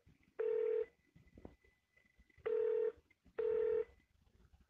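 Telephone ringback tone over a phone line: short buzzing rings in the double-ring pattern, one near the start and a pair about two seconds in. It is the line ringing while the call is transferred to a helpline counsellor.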